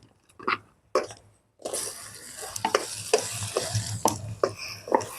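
Cooking on the stove: a steady sizzling hiss with a utensil stirring and knocking against the pot every half second or so, starting suddenly about a third of the way in after a near-silent moment with a couple of faint clicks.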